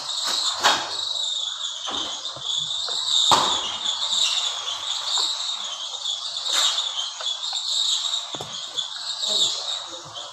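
Insects chirping in a steady high-pitched chorus, with scattered sharp knocks and clicks, the loudest about three seconds in.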